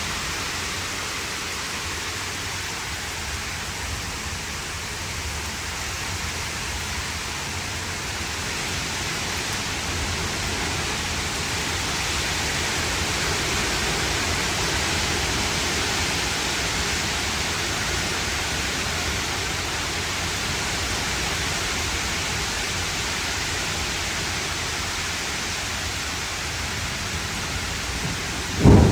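Heavy rain falling steadily in a thunderstorm, swelling a little midway, with a loud thunderclap breaking in right at the end.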